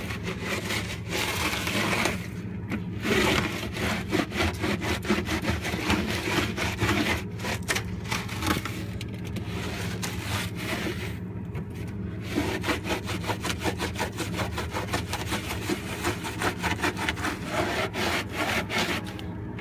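A damp Norwex Envirocloth microfiber cloth scrubbed hard back and forth over stuck-on grime on a refrigerator, a quick rhythmic rubbing that stops briefly a couple of seconds in and again about halfway.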